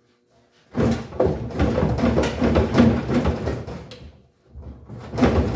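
Partly cut sheet-metal floor section of a car body being wrenched and shaken to break it free, the loose metal rattling and scraping in two long bouts.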